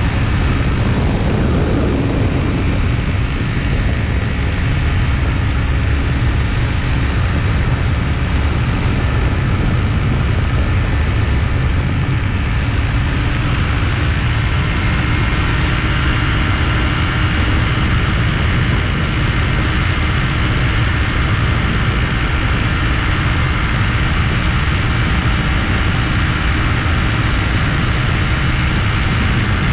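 Weight-shift trike ultralight in cruising flight: the steady drone of its engine and propeller, mixed with heavy wind rush on the microphone.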